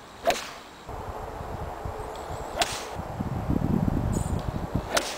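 Golf club heads striking balls off the tee: three sharp cracks, each from a different full swing, about two and a half seconds apart.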